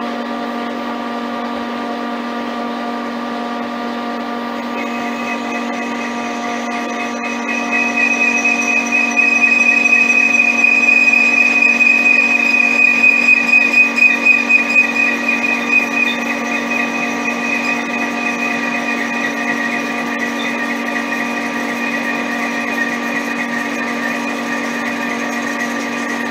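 Frisell metal lathe running with a steady motor hum while a tool cuts off a length of metal tube. About five seconds in a high whine from the cut joins the hum, grows loudest in the middle with a pulsing waver, then eases to a steadier level.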